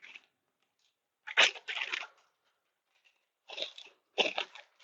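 A few short crinkling, clicking handling noises as small hardware parts and their plastic packaging are picked up and set down, with quiet pauses between.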